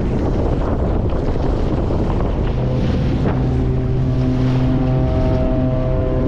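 The cruise ship Caribbean Princess sounds a long, deep, steady horn blast, starting about two and a half seconds in and still going at the end. It sounds over wind buffeting the microphone and the rush of a small boat on the water.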